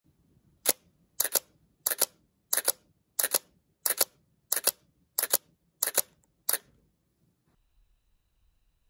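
Nikon D610 DSLR's mirror and shutter firing ten times in a steady run, about one and a half shots a second, each shot a quick double clack; the run stops near the end.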